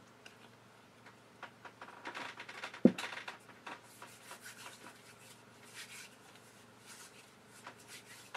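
Faint handling noises of small metal equipment: scattered light clicks and rubbing, with one sharp knock about three seconds in.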